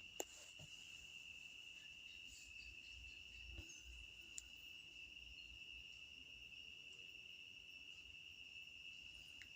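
Faint, steady insect trill, typical of crickets: one high note held without a break. There is a small tick about four seconds in.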